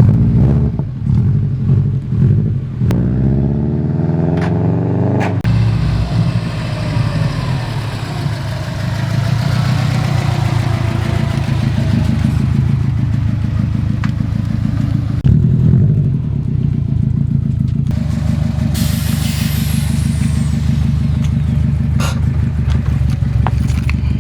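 A Subaru WRX's turbocharged flat-four engine running steadily, with a rising rev a few seconds in.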